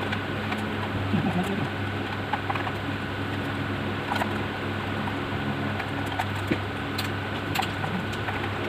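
Scattered small clicks and taps as a mechanical keyboard is handled and opened, over a steady background hum with a faint high whine.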